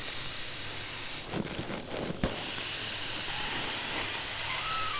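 Air hissing as a nylon pump sack is squeezed down to push air into an inflatable sleeping pad. Rustling and knocks of the bag come first, and the steady hiss sets in about halfway through.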